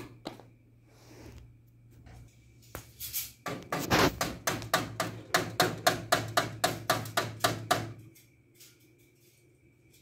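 African grey parrot making a rapid run of sharp knocking clicks, about four a second, lasting some four seconds in the middle.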